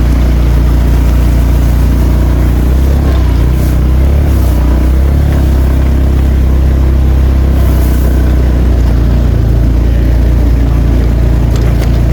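An engine running loudly at a steady speed, with an even, unchanging hum.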